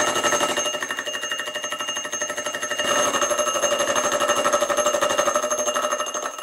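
Milling machine running a disc gear cutter through a gear blank on a dividing head, cutting a tooth space: a steady high whine with fast rhythmic chattering. The tone shifts about three seconds in, and the machine stops abruptly at the very end.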